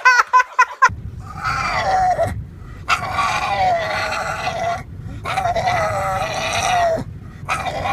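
An animal giving four long, drawn-out calls with short pauses between them, each call sliding down in pitch at its end.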